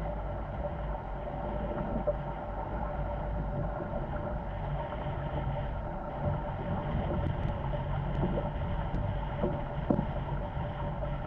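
Wind buffeting the microphone and water rushing along the hulls of a Corsair F-24 MKII trimaran sailing fast in strong wind, a steady rush with a low rumble. A few sharp knocks come in the second half, the loudest about ten seconds in.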